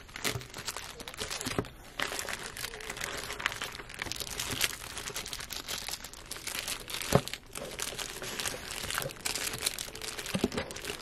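Plastic packaging bag crinkling and rustling as it is handled and pulled apart in a cardboard box, with a sharp knock about seven seconds in.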